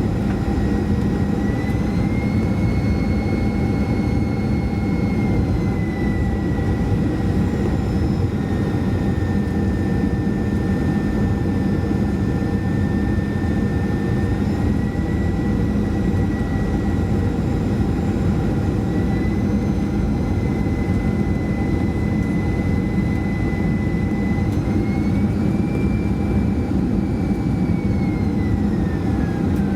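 Boeing 737-400 cabin noise on approach: a steady rush of air and CFM56 jet engines, with the engine whine stepping up and down in pitch several times as thrust is adjusted in the gusty wind, and sliding down near the end.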